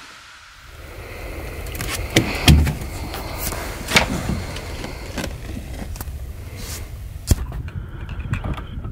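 A landed redfish (red drum) flopping on a boat deck: irregular thumps and slaps, the heaviest about two and a half seconds in. Under them runs a steady low rumble of wind and water.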